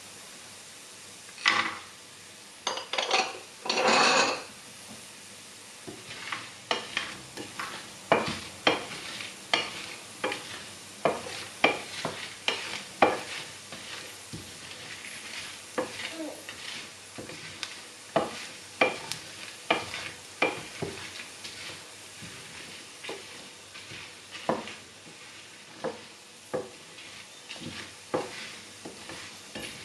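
Wooden spatula stirring and scraping whole spices, dried red chillies and cashew nuts around a ceramic frying pan: many short, irregular scrapes and clicks over a faint sizzle of oil on low heat. A few louder clatters in the first four seconds as the cashews are tipped into the pan.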